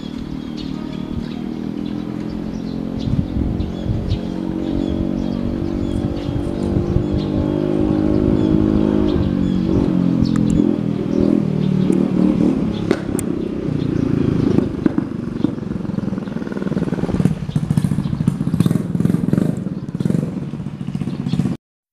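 CC 201 diesel-electric locomotive's engine throttling up as it pulls the train away, its note climbing for the first several seconds, with the wheels clicking and clattering over rail joints and points.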